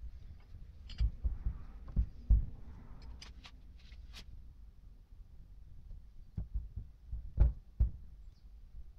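Handling noise from the metal water pump casing on a workbench: a series of dull thumps and knocks in two clusters, with a few sharp clicks in between.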